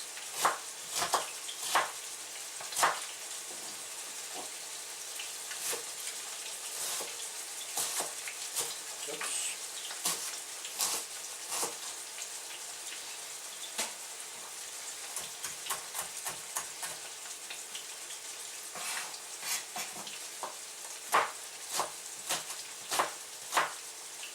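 Minced-beef steaks frying in oil in a pan, a steady sizzling hiss, with irregular sharp knocks and clicks of kitchen utensils scattered through it.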